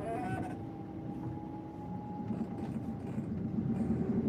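Car engine and road noise inside the cabin, growing louder toward the end as the car picks up speed in the opening traffic. A brief rising tone sounds right at the start.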